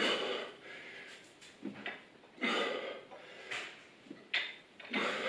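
A man breathing out hard and rhythmically while doing dumbbell thrusters, a forceful breath roughly every second as he drives each rep up.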